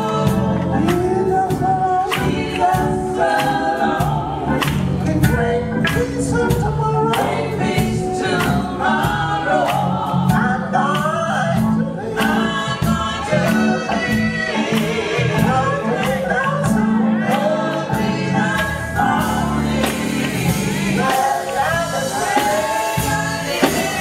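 Recorded gospel song: a gospel vocal group singing with band accompaniment, bass and drum beat.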